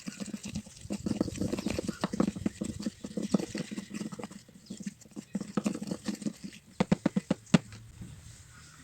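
Sticky glue slime mixture being stirred in a small plastic pot: fast, irregular wet clicking and squelching, with a few sharper clicks before it stops near the end.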